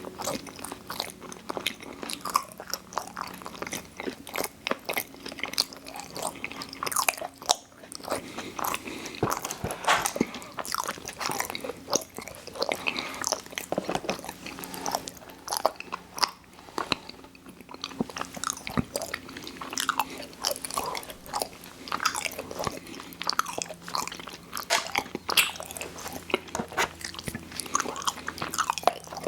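Close-miked mouth sounds of a person biting and chewing sweet snack food, a steady stream of wet clicks and soft crunches with a couple of short pauses.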